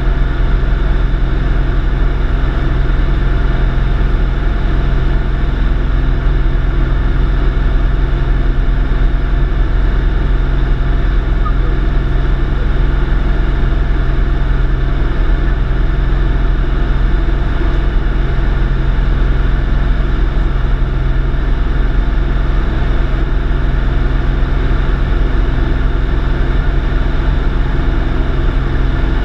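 Single-engine light aircraft's engine and propeller droning steadily, heard from inside the cabin in flight.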